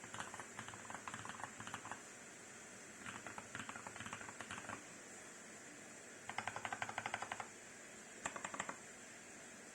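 Typing on a TOM980 mechanical keyboard with tactile royal blue switches and cherry-profile DAGK keycaps, in four bursts of keystrokes over a steady hiss. The third burst is a fast, even run of keypresses, and the typing stops shortly before the end.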